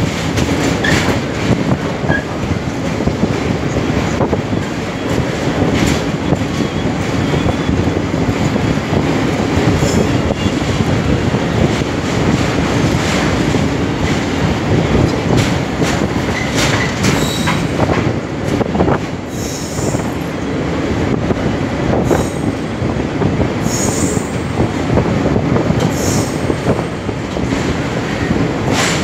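Train running along the track: a steady loud rumble of steel wheels on rails, with the clack of wheels over rail joints now and then, more often in the second half.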